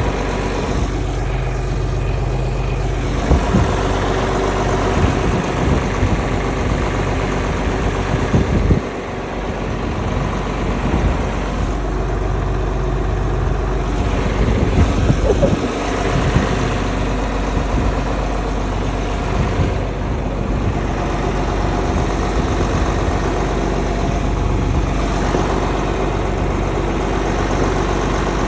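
An engine idling steadily, with a few short knocks over it and a brief dip in level about nine seconds in.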